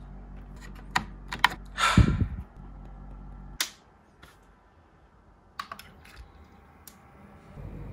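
Sharp plastic clicks and handling noise of cables and connectors being pushed into place inside a PC case, with a short louder rustling scrape about two seconds in.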